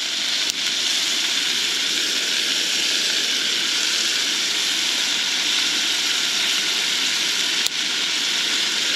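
Beef burger patties sizzling steadily in butter in a frying pan on a propane camp stove, just after being flipped. Two faint clicks, one about half a second in and one near the end.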